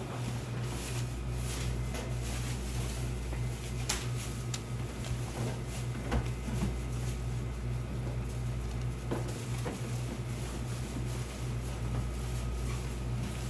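Steady low machine hum, with scattered light clicks and knocks from kitchen work.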